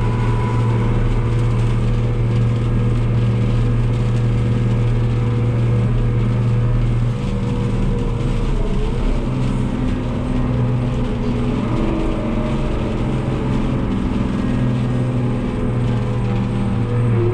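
New Holland TM165 tractor's six-cylinder diesel engine running under way, heard inside the cab. The engine note dips about seven seconds in and shifts again around twelve seconds.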